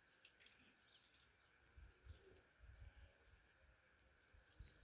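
Near silence, with faint bird chirps scattered through it and a few soft clicks.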